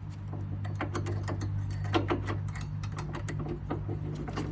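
Irregular run of sharp metal clicks, several a second, from fitting the generator's wheel and handle hardware, over a steady low hum.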